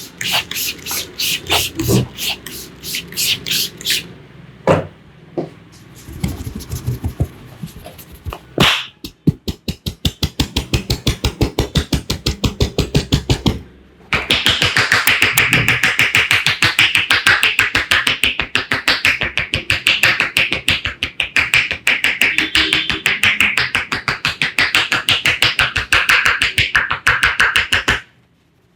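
Fast rhythmic percussive hand strikes of an Indian head massage, many a second. A steady run of tapping turns louder and denser about halfway through, then stops suddenly near the end.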